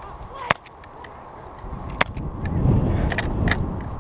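Two sharp airsoft pistol shots, about a second and a half apart, with a few fainter clicks. A low rumble swells in the second half.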